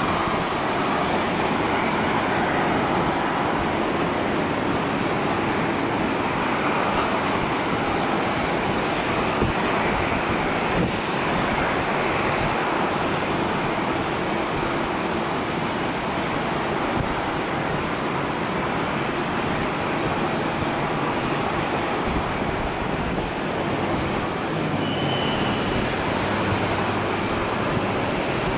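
Steady jet engine noise from airliners taxiing nearby, an even rushing rumble with no single event standing out.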